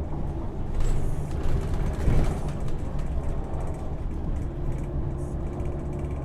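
Inside a moving city bus: a steady low engine and road rumble, with the cabin fittings rattling and a couple of louder knocks about one and two seconds in.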